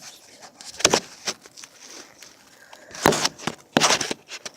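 Rustling and handling noise of a coat being put on, in short bursts of fabric swishing about a second in and twice more near the end, with small clicks between.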